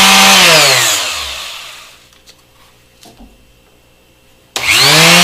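Chicago Electric palm finishing sander running free, held in the hands off any surface, with a steady motor hum. About half a second in it is switched off and winds down with falling pitch. Near the end it is switched on again and spins up with rising pitch.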